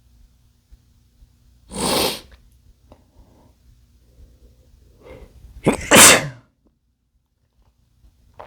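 A man sneezing twice: once about two seconds in, then again, louder, about six seconds in.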